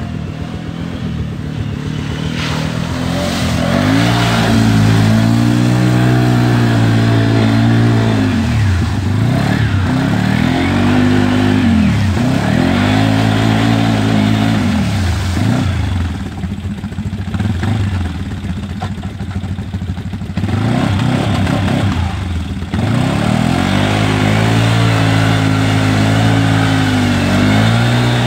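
ATV engine revving up and dropping back again and again, held high for several seconds at a time, as the quad's spinning wheels churn through a deep mud hole.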